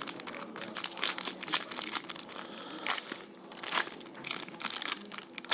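Packaging crinkling and crackling in irregular handfuls as a small trading-card box is opened and its wrapped cards are handled, with one sharper crackle near the end.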